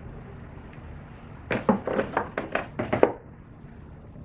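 A quick run of sharp plastic clicks and knocks, about seven in a second and a half, starting about a second and a half in: hands handling the engine's plastic cover and oil fill cap.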